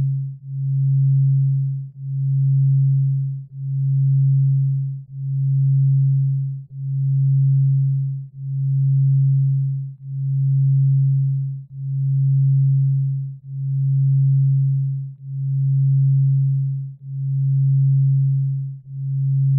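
A low, pure electronic sine tone that swells and fades evenly, about once every second and a half to two seconds, played as theta brainwave sound.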